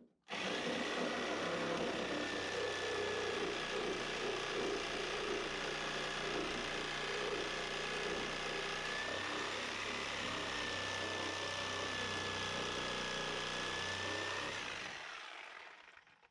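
Power tool running steadily with a faint high whine, starting suddenly and winding down near the end.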